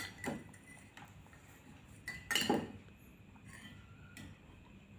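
Coffee cup and spoon clinking and knocking lightly, a few scattered taps, the clearest about two and a half seconds in.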